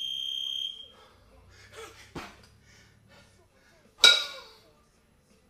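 A short, steady electronic beep, then, about four seconds in, a pair of 22 kg kettlebells clanking together with a ringing clang as they drop back into the rack during jerk reps.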